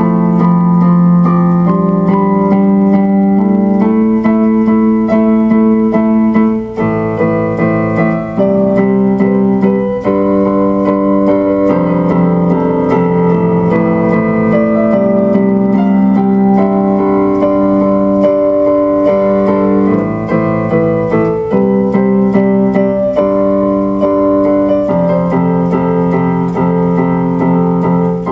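Instrumental music on an electronic keyboard: slow held chords in a piano-like voice, changing every second or two.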